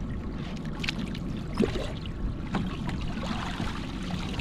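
Crab pot hauled up the side of a small boat and lifted out of the sea, water streaming and dripping off it near the end, over a steady low rumble from the boat and a few knocks.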